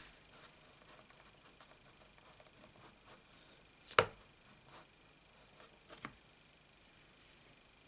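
A clear acrylic stamp block is dabbed and pressed onto an ink pad to ink a rubber stamp. It makes faint soft taps, with one sharp click about four seconds in and two smaller clicks around six seconds.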